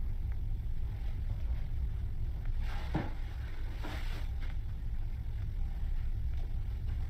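A low, steady rumble with two brief rustling swooshes about three and four seconds in, from a handheld camera being carried toward a closet door.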